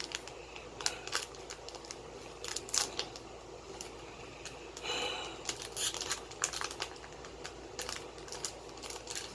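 Foil trading-card booster pack crinkling and being torn open, with the cards handled: an irregular string of short crackles and clicks.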